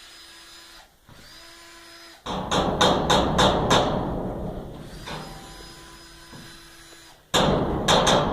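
Power drill working on roof panels: a short motor whine twice, then a sudden loud rattling clatter that slowly fades, starting again near the end.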